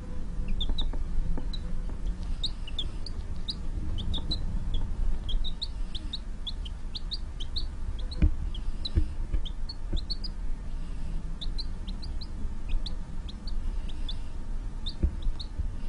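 A chick cheeping: a steady run of short, high peeps, two or three a second, over a low rumble, with a few dull knocks in the middle and near the end.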